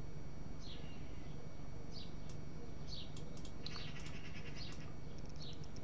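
Birds chirping in the background: short, high, falling notes about once a second over a steady low hum, with a few light clicks.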